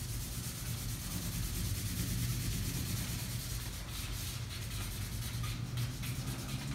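Felt-tip marker scratching back and forth across paper in quick colouring strokes, with a low steady hum underneath.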